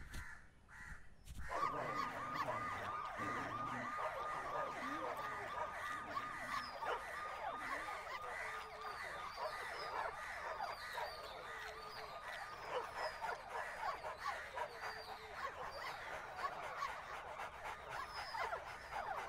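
A dense chorus of many overlapping animal cries and squeals, some gliding up and down in pitch, starting suddenly about a second and a half in.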